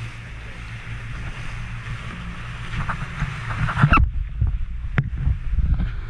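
Motorboat running fast through the waves: a steady low rumble with the hiss of spray and wind. About four seconds in, the hiss suddenly drops away, and a few sharp knocks follow.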